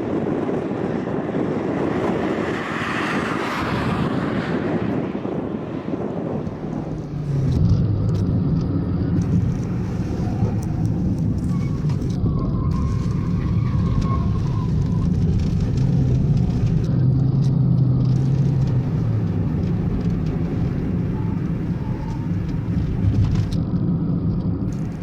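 A car engine held at high revs while drifting; its steady note comes in loud about seven seconds in. Before that there is a broad rushing noise.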